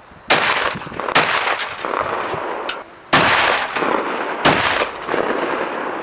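Gunshots fired in quick succession: about five sharp reports, one to two seconds apart, each followed by a long rolling echo.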